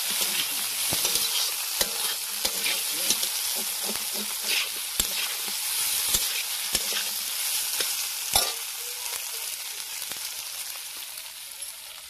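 Potato chunks and fish pieces sizzling in a hot iron kadai while a metal spatula scrapes and clinks against the pan in quick stirring strokes. A sharper knock of the spatula comes about eight seconds in, after which the stirring stops and the sizzle grows quieter.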